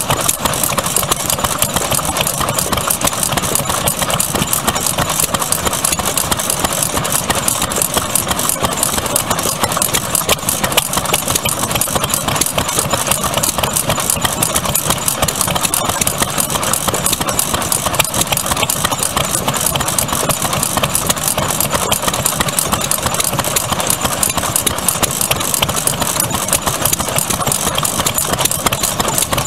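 Vintage Japanese stationary kerosene engines (sekiyu hatsudōki), heavy-flywheel single-cylinder farm engines, running steadily with a fast, even clatter of firing strokes.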